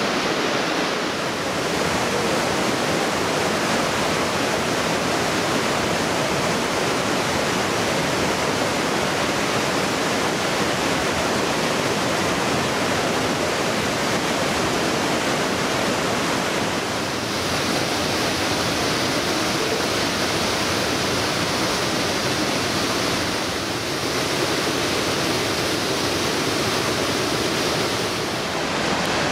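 The Aare river rushing through its narrow rock gorge: a steady, loud wash of whitewater, its character shifting slightly a few times.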